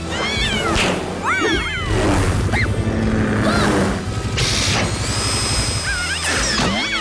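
Cartoon action soundtrack: music under mechanical sound effects, with short high cries that glide up and down, and a high steady whine near the end.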